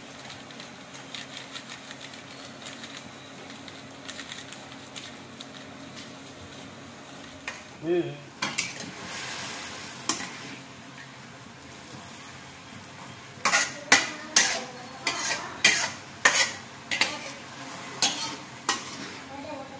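Water spinach stir-frying in a wok with a steady sizzle. In the second half a metal spatula scrapes and knocks against the pan, about one to two sharp strikes a second.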